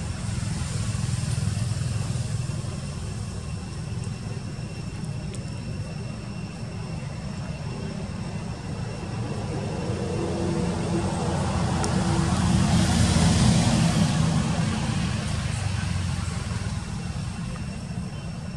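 Low rumble of a motor vehicle passing, swelling to its loudest about two-thirds through and then fading.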